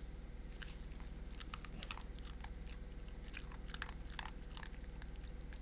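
A pinscher-mix dog chewing dog food, an irregular series of short, crisp crunches.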